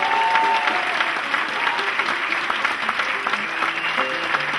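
Oud music, a melody of short plucked notes stepping up and down, with applause running over it.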